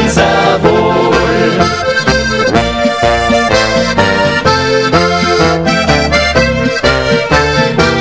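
Instrumental passage of a brass-less folk march, led by a button accordion over a steady bass line, with no singing.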